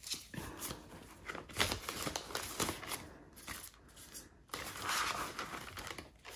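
Polymer banknotes and plastic binder pouches rustling and crinkling as a stack of bills is slid into a pouch and the binder's pages are turned, with small clicks and a longer rustle about five seconds in.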